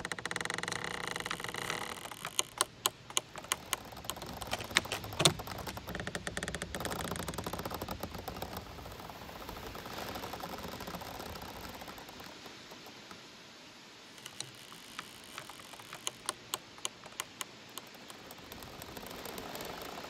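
Giant bamboo culms swaying in the wind, creaking and clacking against each other over a steady rustle of leaves. A drawn-out creak opens it, then bursts of sharp knocks come in two clusters, early and again past the middle.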